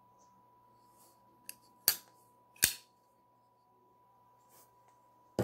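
Sharp metallic clicks of a folding pocket knife being handled: a light click, then two loud snaps about two-thirds of a second apart, typical of the blade being flipped open and locking, and another click near the end.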